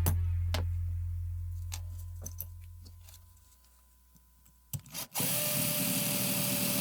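A low hum fades away over the first few seconds. After a couple of clicks about five seconds in, a power tool starts and runs with a steady hissing whir.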